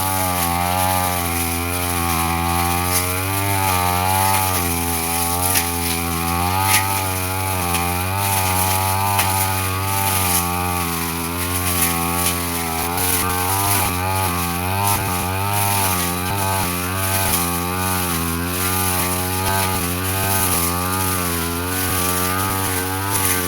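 Brush cutter engine running while cutting grass and brush, its pitch dipping and recovering over and over as the blade takes and sheds load, with a few sharp ticks.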